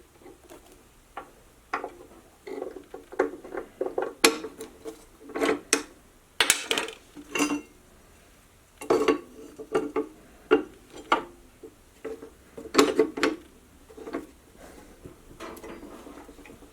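Irregular metallic clanks, knocks and rattles with brief ringing, from metal parts being handled and fitted while a portable bandsaw is set up.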